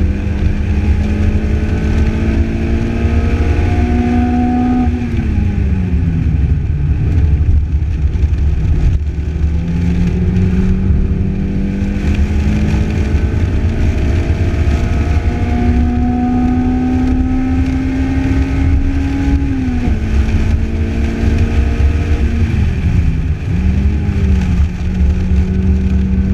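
Lotus Elise's four-cylinder engine heard from the open cockpit at speed, with heavy wind and road rumble. The engine climbs slowly in pitch, drops away about five seconds in, then pulls up again for a long stretch through the middle. It drops again about twenty seconds in, with a quick dip and recovery soon after, as the car brakes and shifts down.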